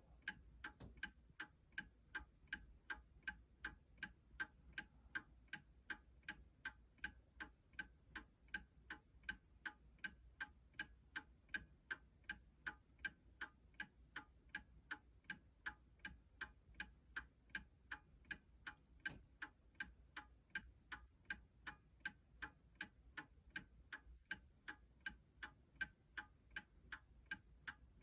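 Antique Seth Thomas 5-bell Sonora chime clock ticking steadily and evenly.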